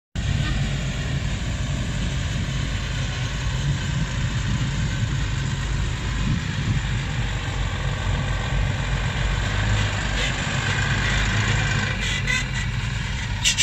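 Heavy diesel engines of a Volvo excavator and a ten-wheel dump truck running, a steady low drone. From about ten seconds in it grows louder and brighter as the loaded truck drives off, with a couple of sharp clacks near the end.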